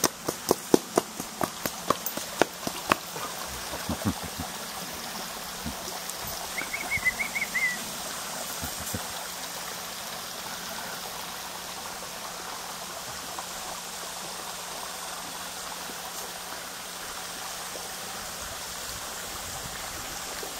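Steady hiss of running water. A run of sharp clicks and taps comes in the first three seconds, and a short high chirping call about seven seconds in.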